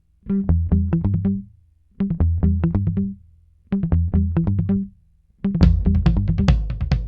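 Electronic background music: short bursts of quick, punchy notes with gaps between them, then a fuller beat with heavy bass kicking in about five and a half seconds in.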